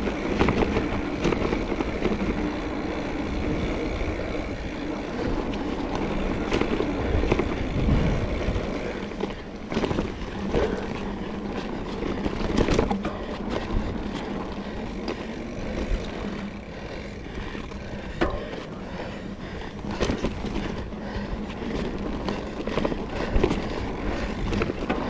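Trek Fuel EX 5 full-suspension mountain bike being ridden over a rough dirt trail. The tyres make a continuous rolling rumble, with irregular knocks and rattles from the bike over bumps and rocks.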